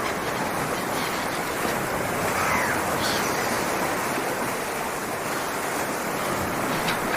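Sea waves washing onto the shore in a steady, continuous rush of surf.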